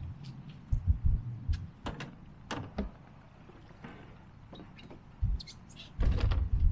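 A man climbing into an open canoe at the water's edge: scattered sharp knocks and clunks against the hull, with heavy low thuds, the loudest near the end.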